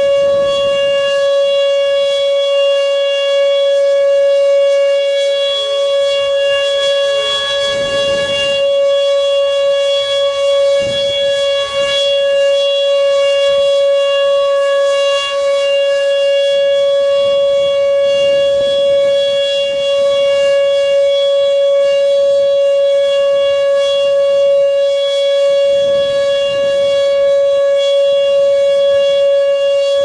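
Whelen 2806 electronic outdoor warning siren sounding a steady alert tone during a test: one loud pitch held level, with no rise or fall.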